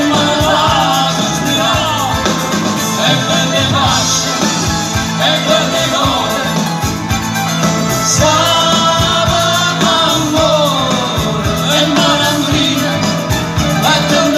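Live band playing a song: singing over guitars, drums and percussion, with a steady beat.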